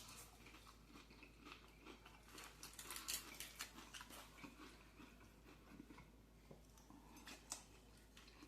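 Faint chewing and crunching of food in a person's mouth, with soft wet clicks, busiest a few seconds in and with one sharper click near the end.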